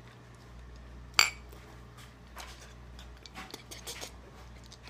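Glassware clinking: one sharp, ringing clink about a second in, then a few faint ticks and clicks.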